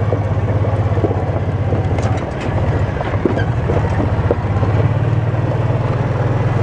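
A vehicle's engine running steadily at low speed, heard from on board, easing off briefly about two seconds in. A few light knocks and rattles sound over it.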